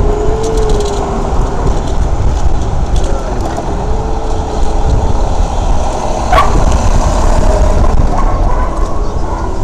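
Wind rumbling on the microphone of a camera riding along on a moving bike, mixed with city street traffic. A brief sharp chirp comes about six seconds in.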